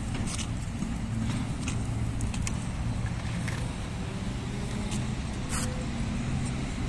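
Steady low hum of road traffic or an engine running, with a few scattered sharp light clicks on top.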